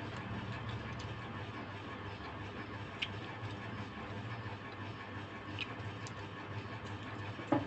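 Quiet mealtime sounds at a table: a few faint clicks and a sharper knock near the end over a steady low hum.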